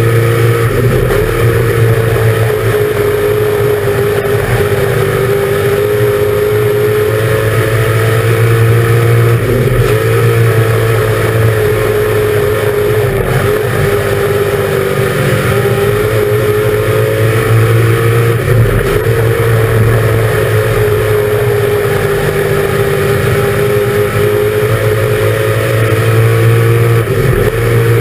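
Dirt-track race car engine at full race speed, heard from inside the cockpit. The revs rise and fall in a repeating cycle of about nine seconds as the car laps the oval, dipping sharply about once every nine seconds.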